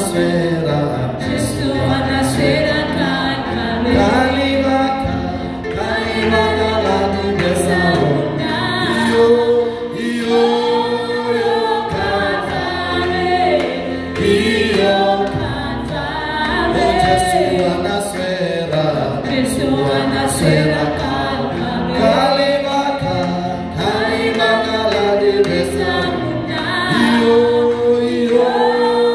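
Live gospel worship song: a man and a woman singing into microphones over keyboard accompaniment, with a steady beat.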